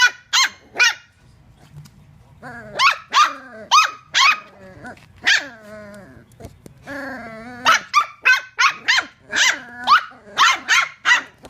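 Dachshunds play-fighting: a few sharp, high-pitched barks, then drawn-out wavering growl-whines in the middle, then a quick run of barks near the end.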